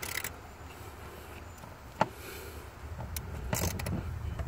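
Socket ratchet loosening a 10 mm bolt on the airbag control module: a few separate sharp clicks, then a quick run of ratchet clicks about three and a half seconds in, over a low rumble.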